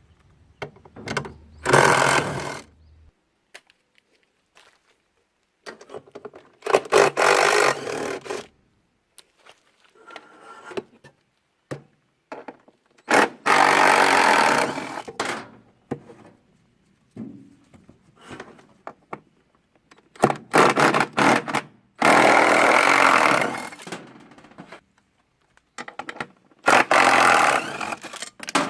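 A power tool runs in about six short bursts of one to two seconds while a washing machine's motor and bearing assembly is taken apart. Clicks and knocks of parts being handled fall between the bursts.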